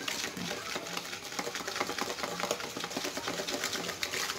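Chocolate cake batter being beaten by hand in a bowl: quick, rhythmic clicking of the utensil against the bowl, several strokes a second.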